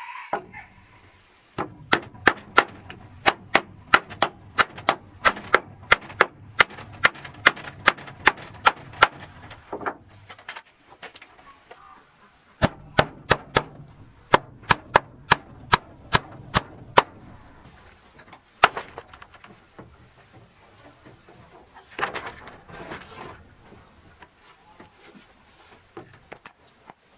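Steady hammer blows, about two to three a second, driving nails into wood. They come in two long runs with a short pause between, then one lone blow.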